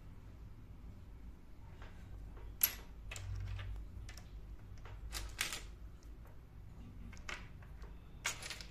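Miniature ceramic pots and vases clicking and clinking against each other and the wooden tabletop as they are picked up and set down by hand: a handful of separate light taps, the sharpest a little under a third of the way in.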